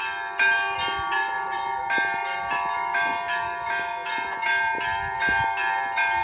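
Orthodox church bells being rung. Quick, uneven strikes of about two or three a second sound over a steady ringing that hangs on between them.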